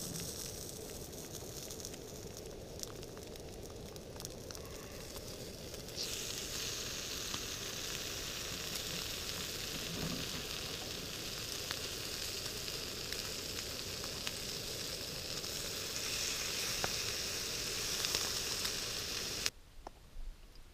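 Food sizzling in a frying pan on a portable camp stove, a steady frying hiss that grows louder and brighter about six seconds in and cuts off abruptly near the end.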